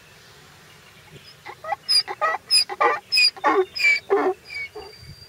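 Donkey braying: a rapid run of alternating hee-haw calls, starting about a second and a half in and tapering off near the end.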